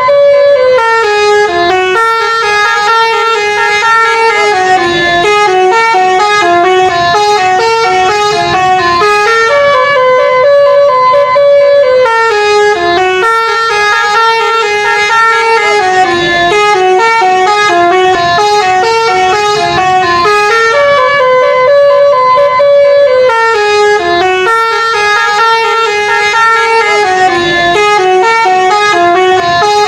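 Indonesian bus 'telolet' horn, a set of air horns sounding notes in sequence, playing a stepping melody that loops about every ten seconds without a break.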